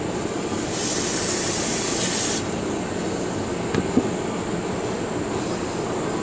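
Aerosol can of brake parts cleaner spraying solvent onto revolver parts: a steady hiss for about two seconds, then a light knock about four seconds in.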